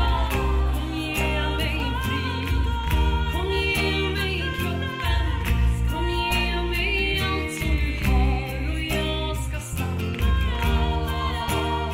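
A song: a woman singing in Swedish over guitar and percussion with a steady beat.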